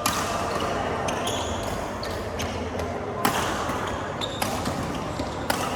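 Badminton rally: rackets striking a shuttlecock, a series of sharp hits spaced a second or so apart, some louder than others.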